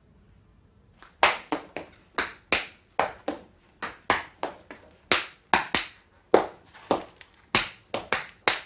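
Dance steps: hard-soled shoes tapping on a board laid on the floor in an uneven rhythm, starting about a second in, with some taps in quick pairs.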